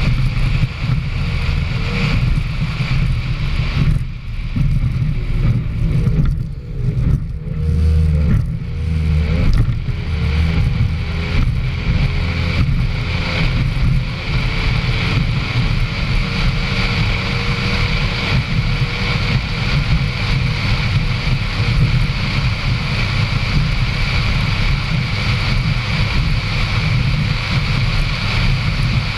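Racing powerboat's engine running hard at speed, recorded on board. The engine note wavers for several seconds early on, then runs steadily.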